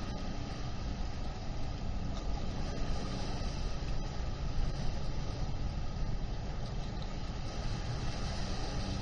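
Steady low rumble of distant engines and traffic across open water, with no single event standing out.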